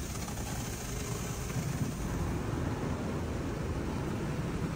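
Tunnel car wash sprays pelting the car's windshield and roof with foam and water, heard from inside the cabin as a steady hiss over a low rumble. The rumble grows a little louder about a second and a half in.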